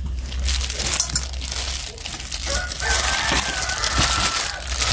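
Thin plastic gloves rustling and wet marinated meat squishing as hands knead marinade into a boiled pig's head in a stainless steel bowl. A rooster crows once in the background, from about halfway in to near the end.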